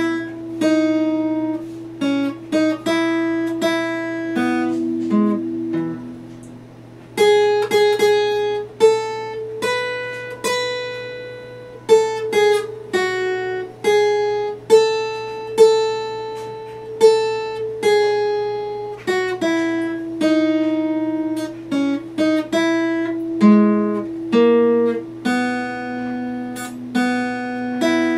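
Epiphone acoustic guitar played note by note, a slow picked melody with each note ringing out and decaying. About six seconds in the notes die away briefly before the playing picks up again a second later.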